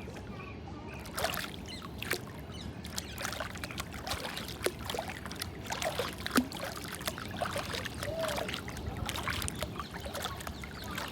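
Flowing water trickling and splashing, with many small irregular splashes and gurgles over a steady wash.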